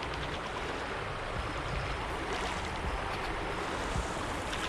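Steady rush of a small creek's running water, with one light knock about four seconds in.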